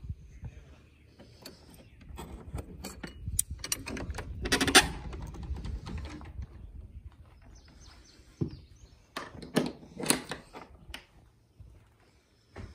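A metal hasp and carabiner clicking and rattling as a wooden shed door is unlatched, then the door creaking loudly as it opens, about five seconds in. More creaks and knocks follow about nine to ten seconds in.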